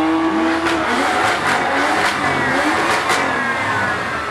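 BMW coupé pulling away at full throttle with its rear tyres spinning and smoking. The engine revs high and holds, then is buried under a dense rush of tyre noise with several sharp pops.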